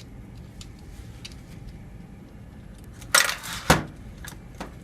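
Metal parts of a dismantled car air-conditioning compressor being handled: a short scrape about three seconds in, then one sharp metallic knock.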